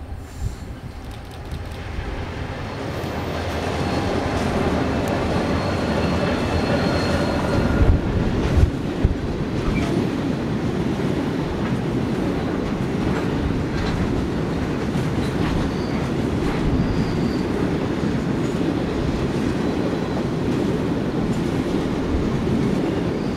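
Grain train rolling past, its wagon wheels clattering over the rails. It grows louder over the first few seconds and then holds steady, with a thin high wheel squeal a few seconds in and two heavy thumps about eight and nine seconds in.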